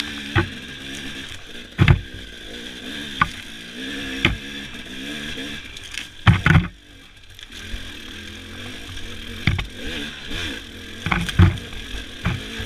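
Dirt bike engine running at low, rising and falling revs, with sharp knocks and clatter several times as the bike rides over rocks and ruts, the loudest about a third of the way in and again near the end.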